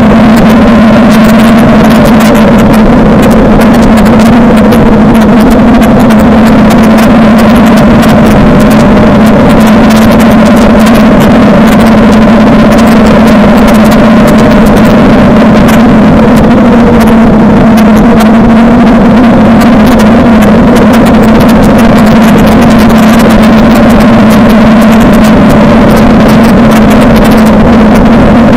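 Suzuki DL650 V-Strom's V-twin engine running loudly at a steady pitch with little change in revs, over rough ride and wind noise.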